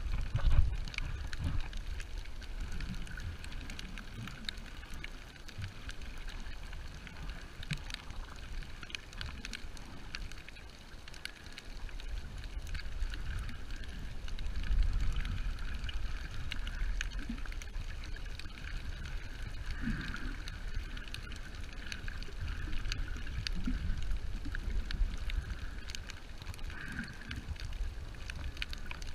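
Muffled water noise heard underwater: uneven low rumbling and sloshing of water moving past the camera, with scattered faint clicks.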